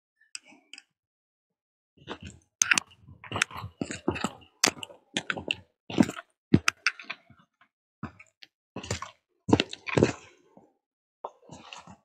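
Footsteps walking through dry fallen leaves on a woodland path, an irregular run of steps starting about two seconds in.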